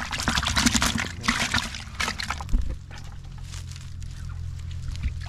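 Freshly caught tilapia thrashing in a plastic bucket of water, splashing and sloshing in irregular bursts for about two and a half seconds, then it stops and a quieter steady low hum remains.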